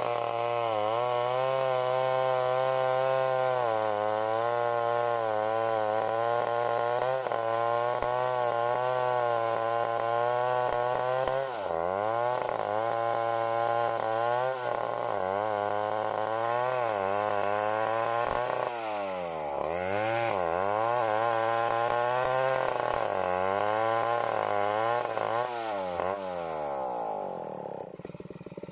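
Large two-stroke 070 chainsaw running at high revs while cutting through a thick duhat (Java plum) limb, its engine note sagging under load and picking back up several times. Near the end it drops off toward idle.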